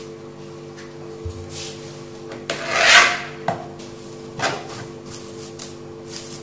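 Plastic cling film rubbing and crinkling as hands roll a wrapped log of cookie dough back and forth on a plastic board, in a few swishes; the loudest comes about three seconds in. A steady low hum runs underneath.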